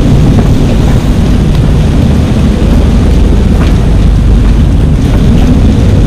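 Gale-force wind buffeting the microphone over the rush of breaking seas around a sailing catamaran's hulls: a loud, steady noise heaviest in the low end, with no let-up.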